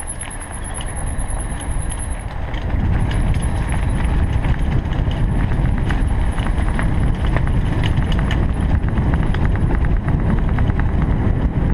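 Bicycle rattling and clattering over a rough, cracked concrete lane on a downhill ride, with wind rushing over the microphone; the rush grows louder from about two seconds in as the bike gathers speed.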